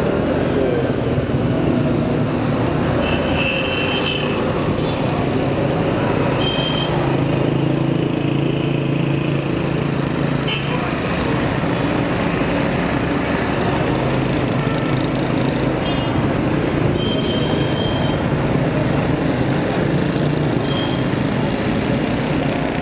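Motorcycle engine running steadily on the move, with wind and road noise. A few short high-pitched tones come and go over it.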